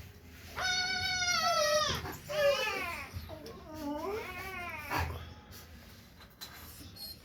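A Rottweiler puppy whining: three high, wavering cries in the first five seconds. The first is long, and the last dips in pitch and rises again.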